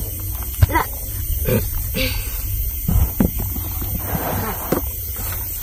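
A heavy basin of fish being lifted onto a scale: scattered knocks and thumps, short grunts of effort, and a brief wet rustle of fish shifting about four seconds in, over a steady low hum.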